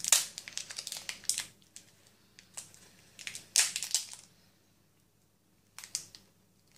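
Clear plastic sweet wrapper crinkling and crackling as it is peeled off a sticky hard candy. The crackles come in irregular bursts, densest in the first second and a half, with a lull before a last few near the end.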